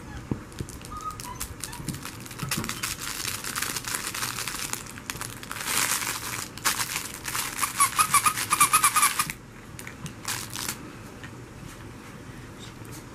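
Beagle puppy chewing and pawing at its toys: crinkly rustling and fast clicking, with a quick run of short squeaky notes, cutting off about two-thirds of the way through.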